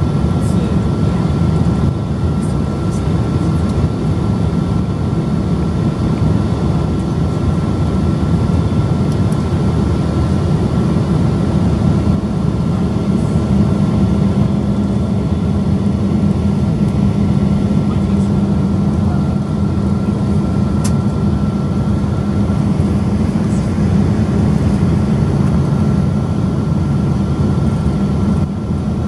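Cabin noise inside a Boeing 777-200 during its descent to land, heard from a seat by the wing: the turbofan engines and rushing air make a steady low drone, with a thin steady whine above it.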